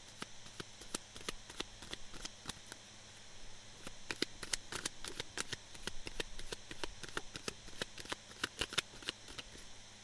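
A deck of oracle cards shuffled and handled in the hands: a run of quick, irregular soft clicks and card flicks, thickest in the middle.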